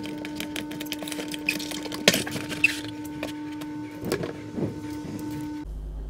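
Cardboard keyboard box being torn open along its tear strip and its sleeve pulled: dense crackling of card with louder rips and scrapes about two seconds and about four seconds in. The sound cuts off abruptly near the end, leaving quiet room tone.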